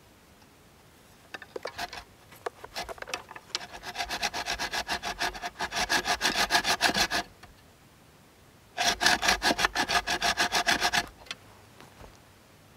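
Wooden frame saw cutting through a log in fast back-and-forth strokes. A few scattered strokes start it, then a long steady run, a short pause, and a second run of strokes that stops near the end.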